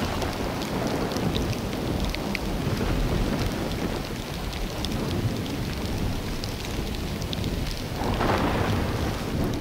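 Steady rain falling outdoors, with a low rumble underneath and scattered sharp drips and splashes.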